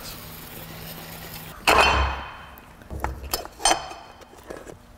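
Metal clutch release parts clinking against a manual transmission's bellhousing as they are handled: one loud ringing clank about a second and a half in, then several lighter clinks.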